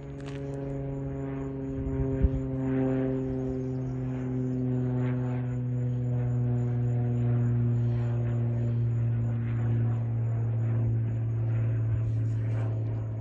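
A distant engine drone: a steady low hum with a stack of higher tones that slowly fall in pitch, swelling about two seconds in. A brief knock sounds about two seconds in.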